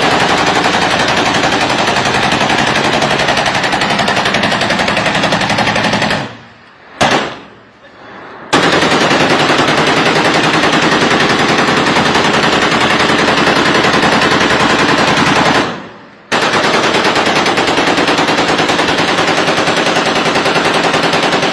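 Machine-gun fire in long sustained bursts of rapid shots, each several seconds long. The firing stops about six seconds in, a brief burst follows, and then it resumes for about seven seconds. It breaks off again briefly near the sixteen-second mark before continuing.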